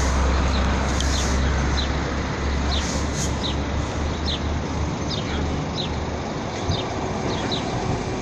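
City street traffic noise with a low rumble that fades about halfway through, and a small bird chirping over it again and again in short, high, falling notes.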